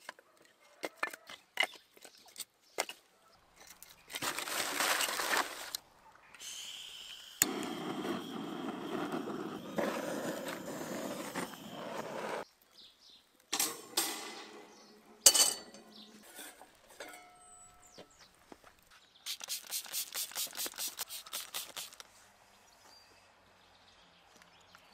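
Split firewood knocking and clattering as it is stacked in a metal barbecue grill, followed by long stretches of rustling from the newspaper and kindling, then more sharp knocks and near the end a quick run of even, rhythmic strokes.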